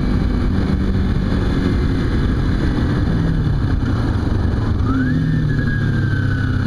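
Kawasaki Ninja 250's parallel-twin engine running under wind rush while riding. About five seconds in the engine note jumps up sharply, then slowly falls.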